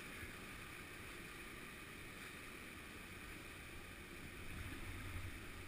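Steady rush of whitewater pouring over a man-made weir, with a low rumble that swells briefly near the end.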